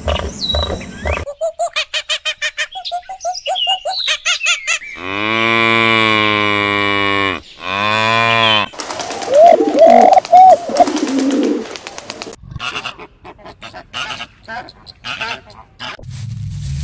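Hereford cow mooing twice, two long low calls about five seconds in, the second shorter. Shorter animal calls and rapid clicking come before and after.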